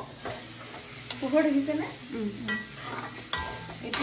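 A metal spoon stirring and scraping a thick mango-coconut laddoo mixture in a black kadai over a gas flame, the mixture sizzling in the pan, with a few sharp clicks of the spoon against the pan in the second half.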